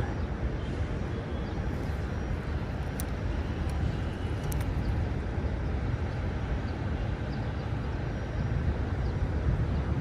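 Steady low outdoor rumble with a few faint clicks.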